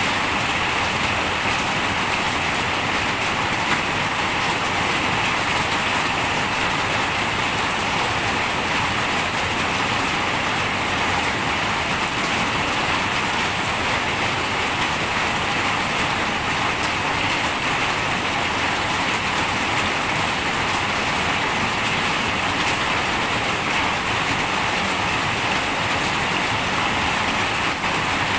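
Steady rain falling, an even hiss that holds at one level without let-up.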